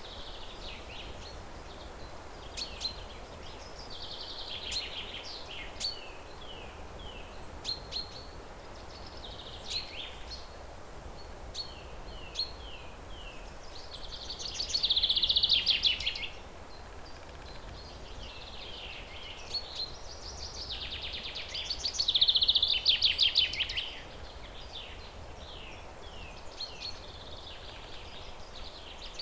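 Songbird singing: repeated phrases of short chirps and quick falling notes that build into a loud, fast trill, about every seven seconds, over a steady background hiss.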